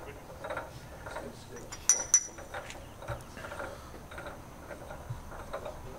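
Two sharp metallic clinks in quick succession about two seconds in, each with a short high ring, over faint background talk.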